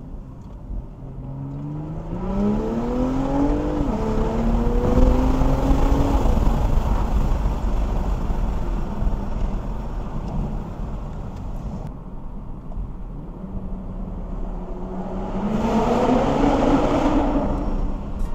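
Turbocharged B58 inline-six of a 2022 BMW M340i xDrive on its stock intake, heard from inside the cabin, accelerating under load. The engine note climbs, drops at a gear change about four seconds in, climbs again and levels off, then rises once more near the end. A sucking, whooshing induction noise sits over the engine note.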